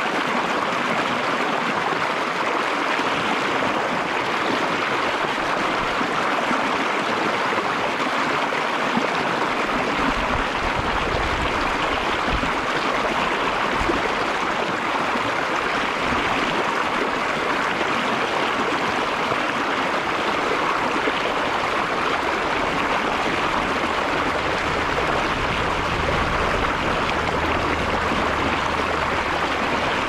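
Shallow stream pouring over a low rock ledge in a small cascade: a steady, unbroken rush of water.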